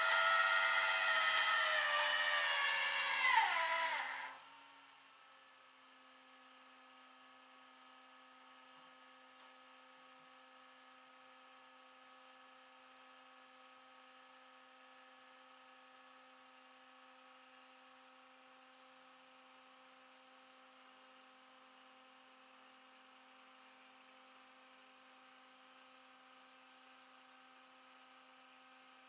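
A loud, high-pitched motor whine that drops in pitch and winds down to a stop about four seconds in, followed by a faint steady electrical hum.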